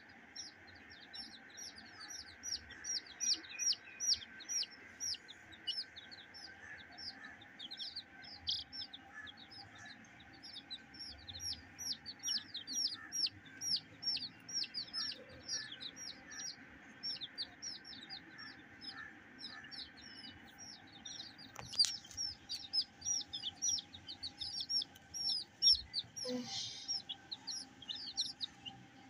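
A flock of young chicks peeping continuously: many short, high, falling peeps a second from several birds at once.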